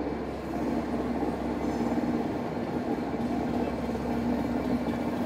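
Class 67 diesel-electric locomotive, with its V12 two-stroke diesel, running with a steady low drone as it draws its train into the platform.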